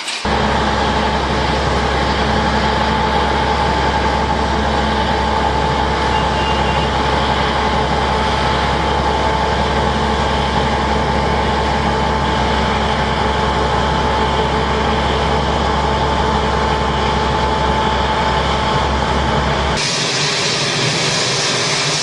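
A heavy engine running steadily at an even speed: a deep rumble with a steady whine over it, starting abruptly. The deep rumble drops away near the end.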